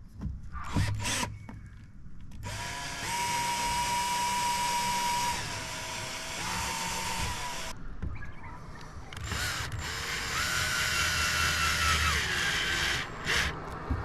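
Power drill driving screws into the boat deck in two long runs, its motor pitch dipping and recovering within each run as the screw is driven, with short knocks near the start and end.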